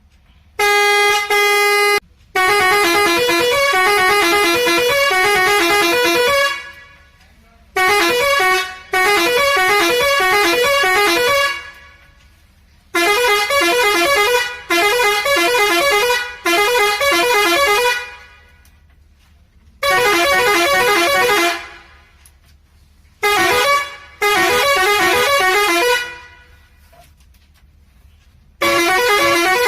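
Indian truck musical horn sounding a series of blasts: a short steady one-note tone, then about half a dozen tunes of a few seconds each, the pitch stepping quickly from note to note, with short pauses between them.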